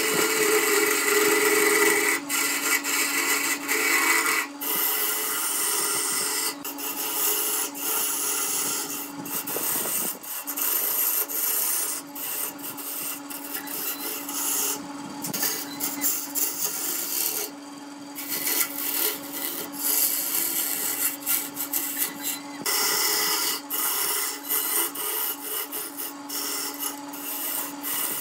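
Small benchtop wood lathe running with a steady hum while a hand-held turning tool cuts a spinning vase blank glued up from colored wood panels: a continuous scraping hiss of wood being cut. The scraping breaks off briefly several times as the tool lifts from the wood.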